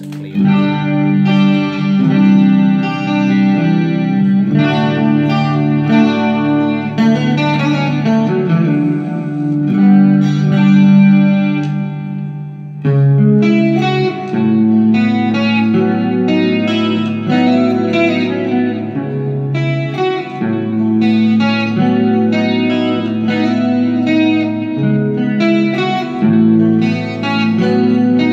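Stratocaster-style electric guitar played through a Vox 20-watt tube-and-digital hybrid amp on its clean channel: undistorted chords and single-note lines ringing out, with a brief pause about halfway through.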